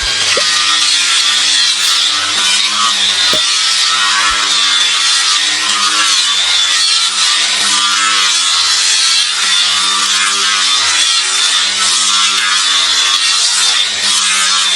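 A hoof being worked with an abrasive tool: a loud, continuous scraping and grinding against the hoof horn, with no breaks.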